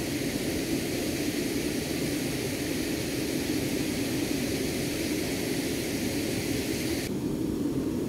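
Fast-flowing muddy floodwater rushing steadily around waders in a river, an even rushing noise; the high hiss in it drops away suddenly about seven seconds in.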